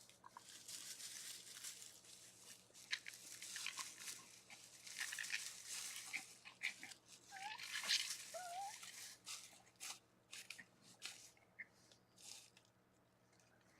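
Raccoons rustling and crunching, faint and irregular, with two short wavering squeals a little past halfway.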